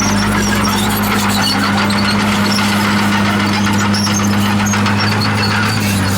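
Komatsu D51PX bulldozer's diesel engine running steadily at a constant pitch, with short high squeaks scattered through it.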